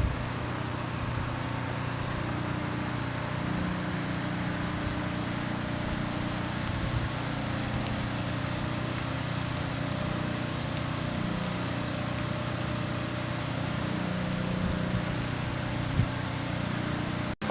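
Steady hiss of rain and water, with a low steady hum underneath.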